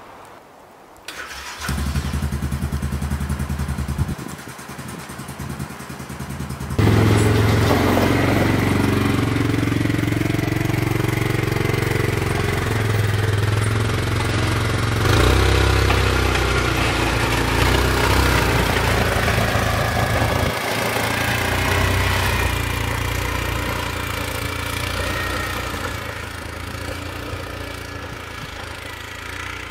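Four-wheeler (ATV) engine starting up about two seconds in, running, then revving and pulling under load as it plows snow with its front blade. The engine sound fades slowly near the end as the machine moves off.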